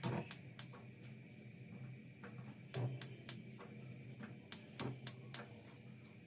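Gas hob's spark igniter clicking in quick runs of three or four, about three clicks a second, as the burner knobs are pressed and turned, over a low steady hum.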